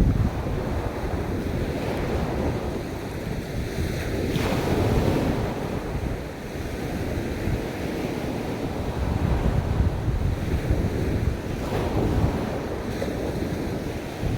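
Ocean waves washing onto a beach, with wind buffeting the microphone as a low rumble. Two waves surge up more loudly, about four seconds in and again about twelve seconds in.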